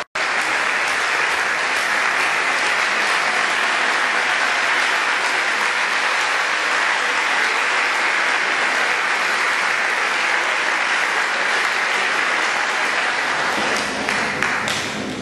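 Concert audience applauding steadily in a large hall, thinning out near the end.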